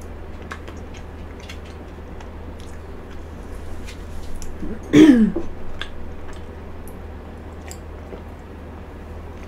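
Close-miked chewing of frozen cheesecake, with many small clicks of the mouth. About five seconds in comes one short voiced sound from the throat with a falling pitch, like a throat clearing.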